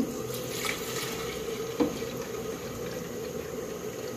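Milk being poured from glasses, with a light knock about two seconds in.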